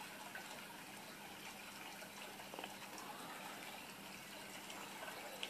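Quiet room tone: a steady faint hiss with a low hum, and a few soft ticks.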